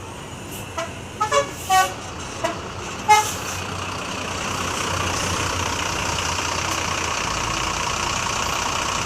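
A few short horn toots from passing vehicles, the last and loudest about three seconds in. After that comes the steady noise of heavy traffic passing close by, growing louder and then holding.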